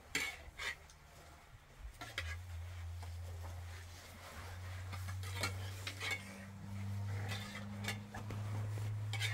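Dishes and metal utensils clinking and scraping in scattered knocks, over a steady low hum.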